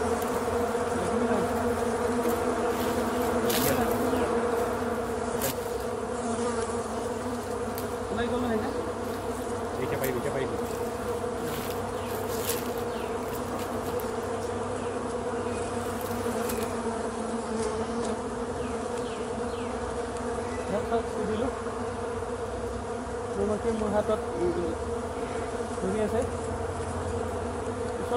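Many wasps buzzing at their large hanging paper nest: a steady drone.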